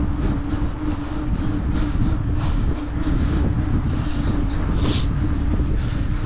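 Wind buffeting the microphone of a moving bicycle, with tyre and road rumble and a steady low hum.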